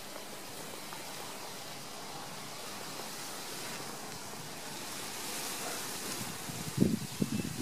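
Steady hiss of wind across the microphone, with a few short, low buffeting thumps near the end.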